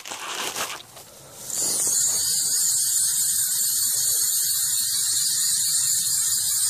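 Fishing reel being cranked steadily to wind in kite line: a loud, continuous high whir that starts about a second and a half in, with a fast fine ticking underneath.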